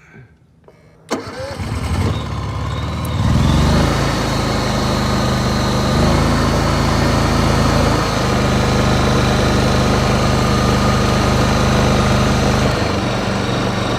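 Honda EU7000iS fuel-injected inverter generator starting about a second in: the engine catches and speeds up over the next two seconds, then runs steadily.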